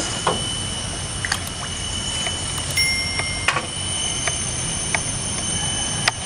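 Outdoor background noise: a steady low rumble with a constant high-pitched whine and a few faint, short clicks scattered through it.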